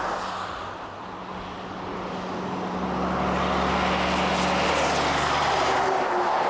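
Semi truck driving along a highway, its engine hum and tyre noise growing louder from about two seconds in and staying strong as it comes close.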